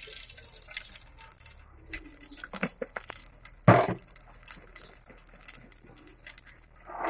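Cooking oil poured from a plastic bottle into a heated aluminium pot: a steady liquid hiss with a few clicks, and one sharp knock a little past halfway.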